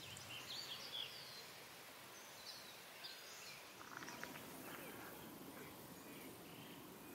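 Quiet woodland ambience with a few faint, distant bird chirps, mostly in the first second or so.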